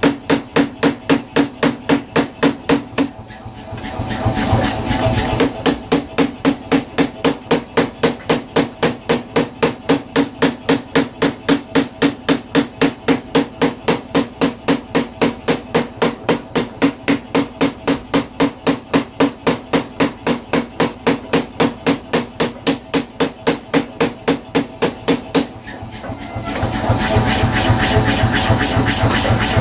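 Power hammer pounding a red-hot cleaver blade at a steady pace of about three blows a second, with a short break about three seconds in. The blows stop about 25 seconds in, and a steady mechanical running noise carries on after them.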